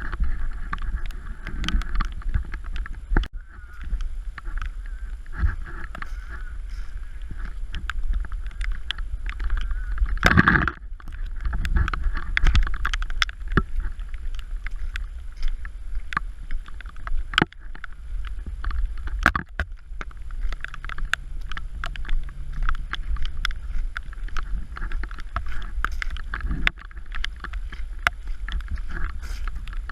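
Storm rain falling and splashing in a steady patter of many small drops, with wind buffeting the microphone as a low rumble; a louder gust about ten seconds in.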